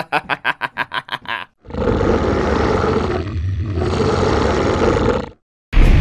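Sound effects: a rapid run of short pulses, about eight a second, then a long steady roar of about three and a half seconds, and a heavy thud just before the end.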